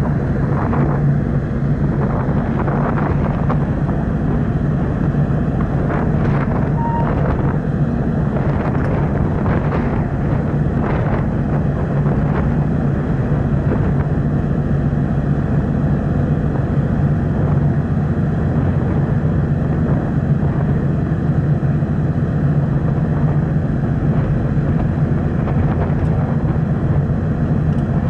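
Steady low drone of a car ferry's engines heard on board, with a few light knocks about a third of the way in.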